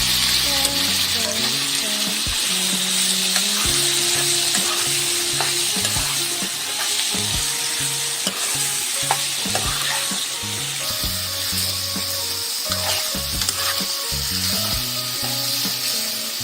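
Chicken pieces frying in hot oil with ginger-garlic paste, sizzling steadily while being stirred, with a spatula clicking against the pan now and then.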